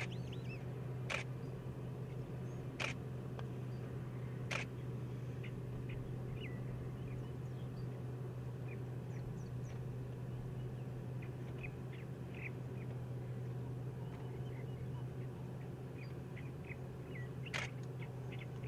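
Outdoor ambience of scattered short, distant bird chirps over a steady low hum, broken by sharp clicks about one, three and four and a half seconds in and once more near the end.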